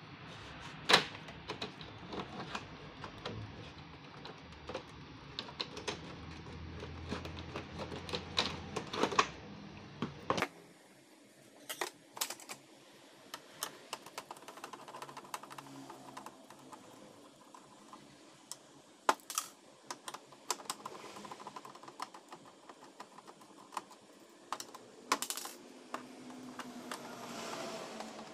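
Irregular sharp plastic clicks and taps from handling the casing of a Brother MFC-J3530DW printer and a screwdriver working the screws of its plastic housing. The clicks come thick at first and grow sparser after about ten seconds.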